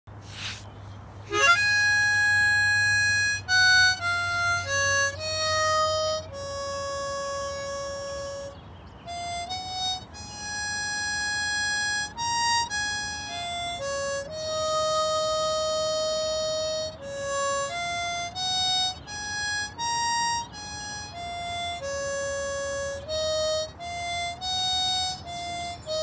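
Harmonica played solo: a slow melody of held notes stepping up and down, starting about a second and a half in.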